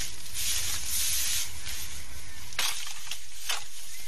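Brush and foliage rustling and crackling as it is hacked down, with three sharp chopping strikes in the second half.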